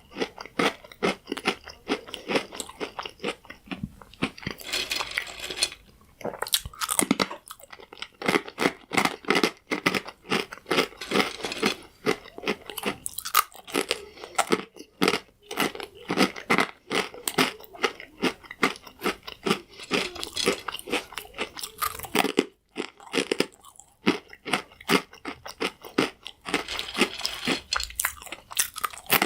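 Crunchy croutons being bitten and chewed: a dense run of sharp crunches, several a second, with brief lulls about six and twenty-two seconds in.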